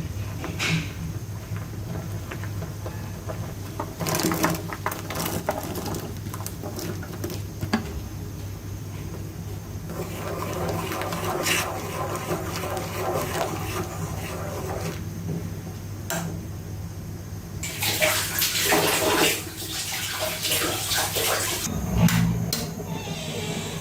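Water running and splashing, loudest for a few seconds near the end, with scattered clinks and knocks of kitchen work over a steady low hum.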